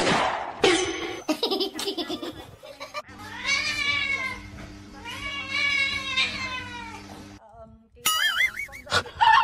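A kitten giving two long, drawn-out meows of about two seconds each, each rising and then falling in pitch, over a steady low hum. Before them comes a loud jumble of short sounds, and near the end a short warbling tone.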